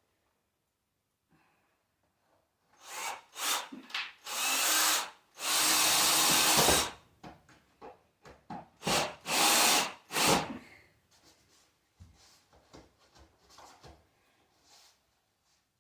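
Power drill running in about five short bursts, the longest about a second and a half, with light knocks and handling between them.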